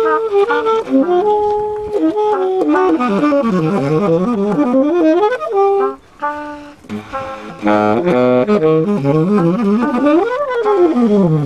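Saxophone playing a fast jazz improvisation, quick runs of notes that climb and fall, with a brief pause about halfway through.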